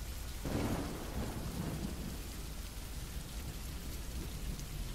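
Steady rain, with a low rumble of thunder that swells about half a second in and fades away.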